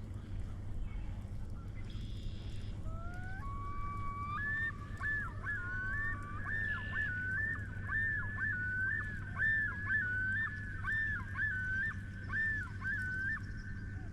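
Common loon calling: a few rising notes about three seconds in, then a long run of repeated two-note phrases, the loon's yodel. A low steady rumble sits underneath.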